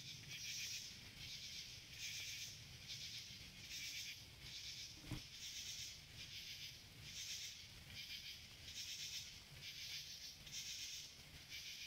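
Insects calling in a faint, steady pulsing chorus, about two pulses a second, with a single short knock about five seconds in.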